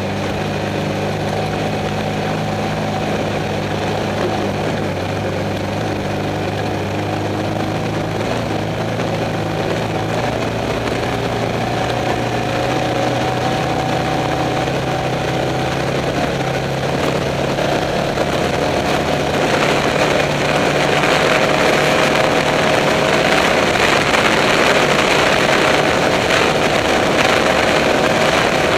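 Off-road race car engine running steadily. About two-thirds of the way through, a louder rush of wind and dirt noise builds up and covers it.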